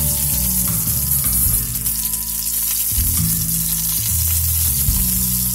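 Mustard seeds and slit green chillies sizzling in a spoonful of hot oil in a kadai: the tempering, with a steady crackling hiss. Background music with low held notes plays under it.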